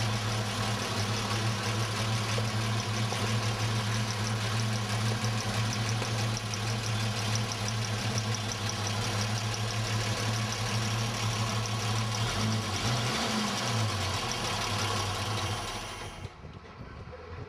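Praga RN truck's six-cylinder petrol engine idling steadily. Near the end its note wavers and dies away.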